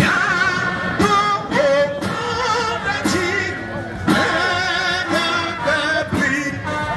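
Music: singing with a wavering pitch over a regular beat of about one stroke a second.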